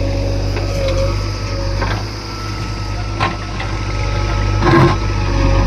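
Heavy diesel engine of earth-moving machinery running steadily, with three short clanks, the loudest near the end.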